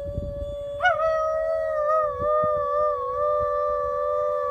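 A woman howling through cupped hands and a dog howling along with her: two long, held howls overlapping, the second voice joining about a second in with a slightly wavering pitch.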